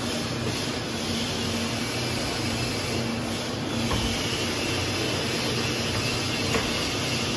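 Steady machinery hum with an even air-noise hiss, with a couple of faint knocks from parts being handled about four and six and a half seconds in.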